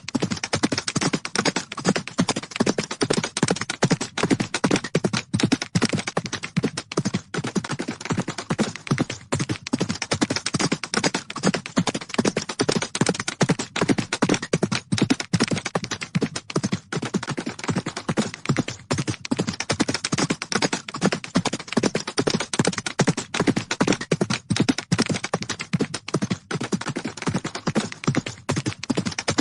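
Horses galloping: fast, continuous, overlapping hoofbeats on the ground.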